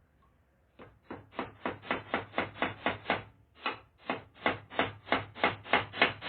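Hammer driving nails: a quick run of sharp blows, about four a second, with a brief pause near the middle before the hammering resumes.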